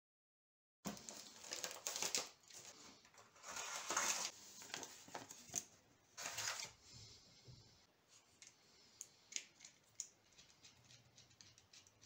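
Paper and cardboard packaging rustling and crinkling as it is handled, in loud bursts for the first several seconds, then giving way to a few lighter clicks and taps.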